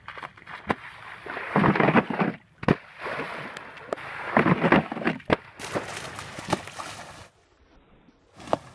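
A skimboard skimming over a thin sheet of water on wet sand, with splashing, a few sharp slaps and wind on the microphone. The water noise comes in two louder surges, then drops to a quieter stretch near the end.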